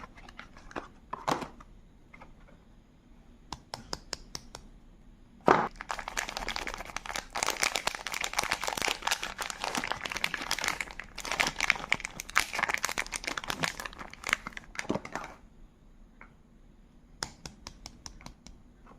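A soap bar's wrapper being handled and torn open: a few sharp crinkles, then about ten seconds of dense, loud crinkling and tearing, then a few scattered crinkles again.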